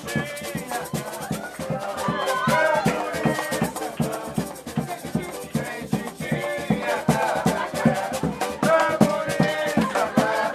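Live samba band playing: a quick, steady beat of drums and shakers, with voices singing over it.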